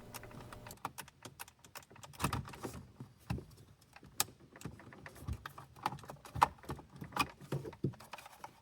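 Irregular small plastic clicks and taps: wiring harness plugs being pinched at their retaining tabs and worked out of the back of a car's climate control dash panel.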